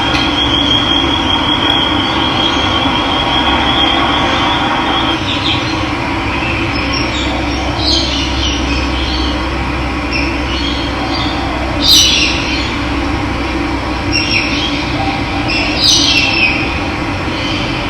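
Steady rush of running water with birds chirping now and then over it, the loudest chirp about two-thirds of the way through. A thin steady high tone sounds over the water for the first few seconds.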